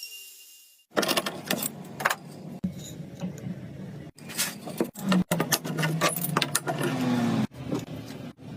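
Hand woodworking tools on wood: starting about a second in, a busy run of short scraping strokes and knocks.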